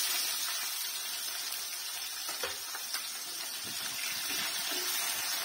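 Sliced onions sizzling in hot oil in a metal kadai, with a few light knocks and scrapes of a steel ladle stirring them about two and a half and three seconds in.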